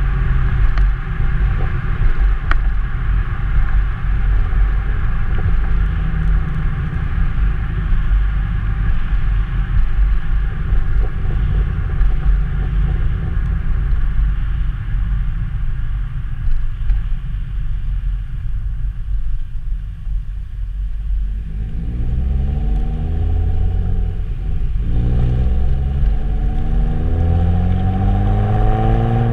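Exhaust of a 2002 Nissan Maxima's 3.5-litre V6 on the move, a steady low rumble with road and wind noise. About two-thirds of the way in, the engine pulls up through the revs, drops suddenly on a gear change, then climbs again.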